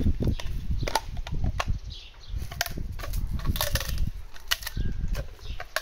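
Bull terrier crunching a dried beef trachea chew, a run of irregular sharp cracks and crunches.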